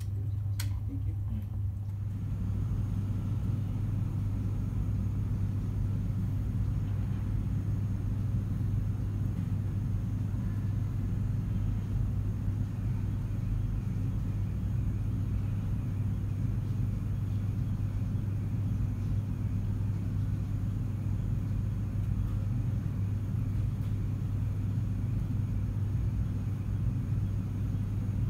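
Steady low hum with a rumble underneath, unchanging throughout, with one faint click about half a second in.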